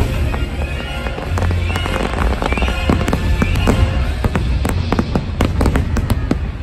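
Aerial fireworks shells bursting in quick succession, the bangs growing denser in the second half, over loud show music from park loudspeakers.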